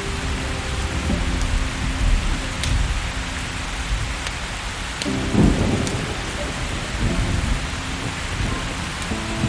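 Steady heavy rain with low thunder rumbling through it, the rumble swelling about five seconds in.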